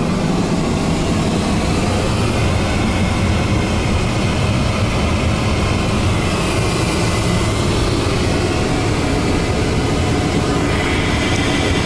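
Steady rushing drone of an airliner in flight, engine and airflow noise heard inside the cabin lavatory, with a low hum underneath.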